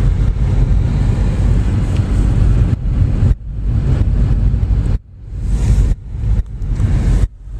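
Car driving along a snow-cleared street, heard from inside the car as a loud, heavy low rumble. In the second half the rumble drops away sharply several times and comes back.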